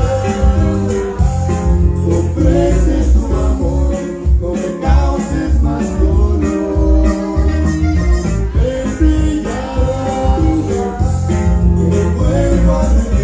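Live Tejano band music: an instrumental stretch of a romantic ballad with bass, guitar, keyboard and shaker keeping a steady beat, possibly with some sung lines.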